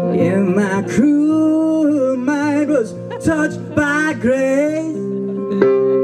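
Live acoustic song: a man sings long, wavering held notes over a steel-bodied resonator guitar. The guitar's notes ring on steadily beneath the voice.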